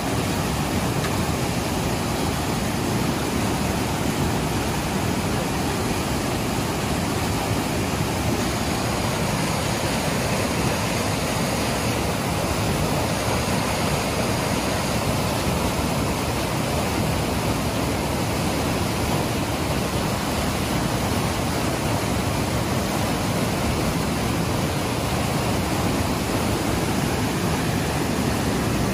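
Shallow river water rushing and churning over rocks in a steady, unbroken roar of noise.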